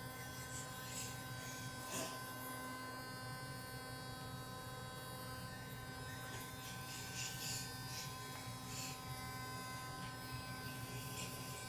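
Electric toothbrush buzzing steadily while brushing a child's teeth, with faint scrubbing sounds now and then.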